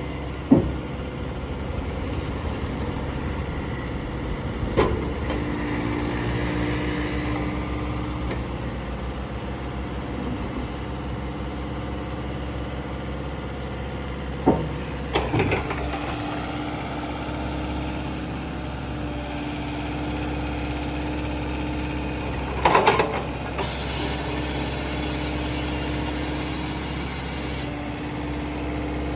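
JCB 86C-1 excavator's diesel engine running steadily as the boom and arm are worked, with a humming tone that sets in and drops out in stretches. A few sharp clanks from the arm and bucket linkage. A high hiss lasting a few seconds near the end.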